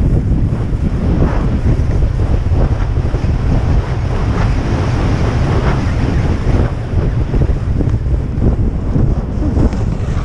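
Strong wind buffeting on an action camera's microphone while skiing fast downhill. Under it, skis hiss and scrape over packed snow in short uneven bursts.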